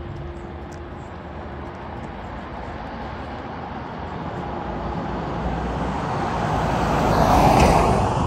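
A motor vehicle driving past close by: its engine and tyre noise builds steadily, is loudest about seven and a half seconds in, then starts to fade.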